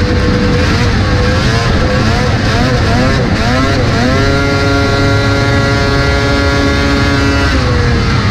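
1981 Arctic Cat snowmobile's two-stroke engine racing, heard from on the sled with heavy wind on the microphone. The engine note wavers up and down through the first half, then holds one steady high pitch for about three seconds before dropping near the end.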